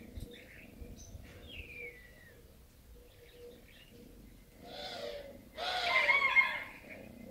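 Kitten mewing: a faint falling mew about two seconds in, then two more, the louder one about six seconds in.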